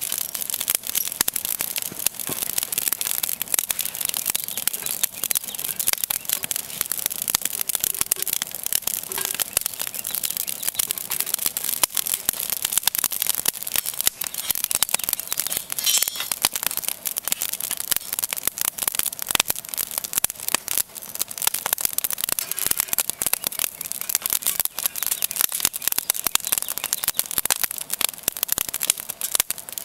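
Open campfire of split firewood crackling, with a dense run of rapid pops and snaps.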